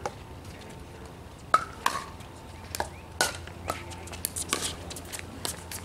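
Pickleball paddles striking a plastic pickleball: a run of sharp pocks at uneven spacing, some loud and some faint, the loudest about one and a half seconds in, over a steady low hum.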